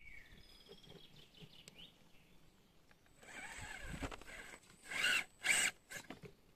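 Birds chirp faintly at first. From about three seconds in, the RGT 136100 V3 RC rock crawler's small electric motor and drivetrain run with a thin high whine as it crawls over wet rocks. Near the end come two loud, harsh bursts.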